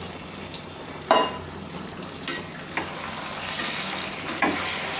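Chicken curry frying in a kadai with a steady sizzle while potato pieces are tipped in and stirred with a metal spatula, which scrapes and knocks against the pan. A sharp knock comes about a second in, and the sizzle grows louder from about three seconds in as the stirring gets going.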